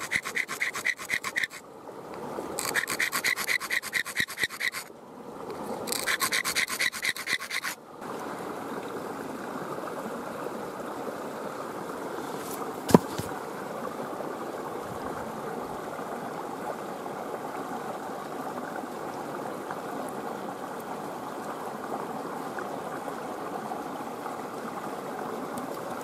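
Freshwater mussel shell ground edge-first against a wet stone in rapid back-and-forth rasping strokes, three bouts with short pauses, to sharpen it for cutting arrow shafts. Then a steady rush of running creek water, with one sharp click about halfway through.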